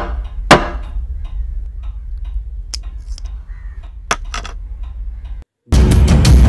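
Scattered sharp taps and clicks of small objects such as eyeglasses being handled and set down on a table, over a low steady hum. About five seconds in the sound cuts out for a moment, then loud background music with a fast pounding beat starts.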